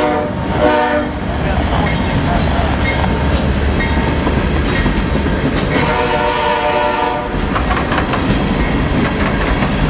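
CSX freight train of refrigerated boxcars rolling past, a steady low rumble with clatter from the wheels over the rail joints. The horn of the lead locomotives, now up the line, gives two short blasts at the start and a longer blast about six seconds in.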